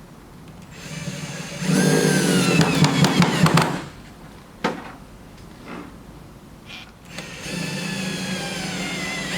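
Power drill with a screwdriver bit driving wood screws into wood, in two runs. In each the motor's whine falls in pitch as the screw bites in and tightens, and there is a sharp click between the runs.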